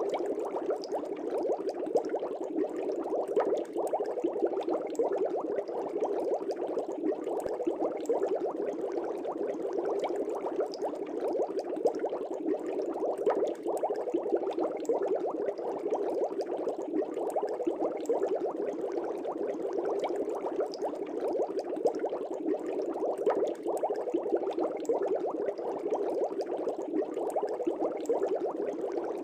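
Aquarium water bubbling steadily: a dense, continuous stream of small bubbles with many quick little pops.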